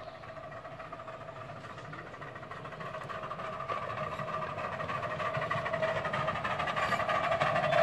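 Miniature railway locomotive approaching, its steady running whine growing steadily louder as it comes closer.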